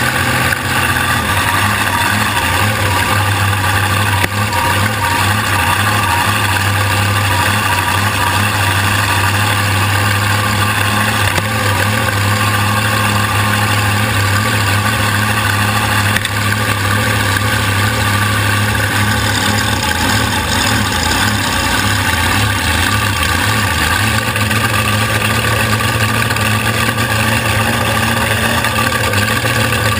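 Supercharged alcohol-burning 540ci V8 of a flatbottom drag boat running steadily at low speed, heard from the cockpit.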